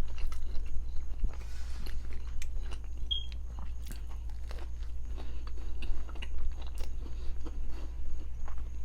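Close-miked chewing and biting of food, with many small wet mouth clicks, over a steady low hum.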